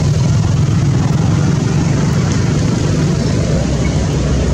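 A steady, loud low rumble, even throughout, like a running engine or traffic noise.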